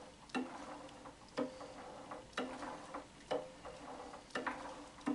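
The freshly refitted gears and rocker arm inside an Atlas 7B shaper's main casting, turned over slowly by hand, giving a sharp metallic click with a short ring about once a second.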